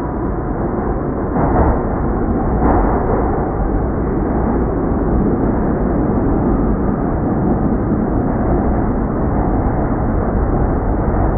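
NYC subway train running, a steady heavy rumble and rattle that grows a little louder about a second in, with two brief clanks near the start.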